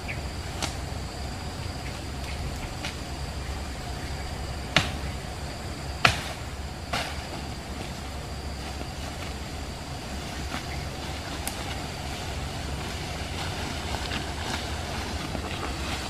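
Outdoor ambience in brush: a steady low rumble and a thin, steady high drone, broken by a few sharp snaps or clicks, the loudest two about five and six seconds in.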